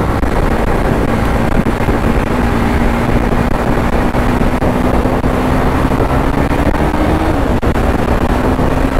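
Bajaj Pulsar NS200's single-cylinder engine running while riding at a steady cruise, its note creeping slowly upward, dipping briefly about seven seconds in and then picking up again, over steady wind and road noise on the microphone.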